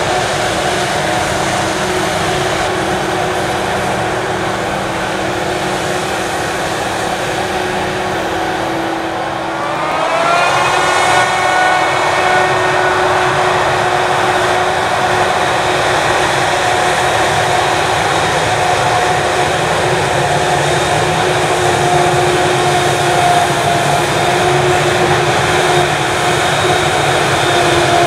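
Claas Jaguar 980 forage harvester running under load as it chops maize: a steady machine drone with whining tones, which rises in pitch and gets a little louder about ten seconds in, then holds steady.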